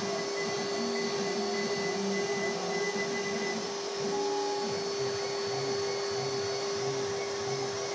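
CNC router spindle running with a steady, single-pitched whine while the bit cuts a wooden board. In the second half a low, regular pulsing comes in, about every two-thirds of a second, as the gantry moves the head.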